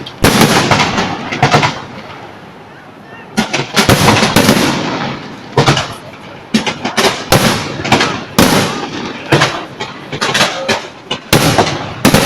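Aerial fireworks bursting in quick succession: loud sharp bangs, each trailing off in a crackling rumble. There is a lull about two to three seconds in, then the bangs come thicker, with a fast cluster near the end.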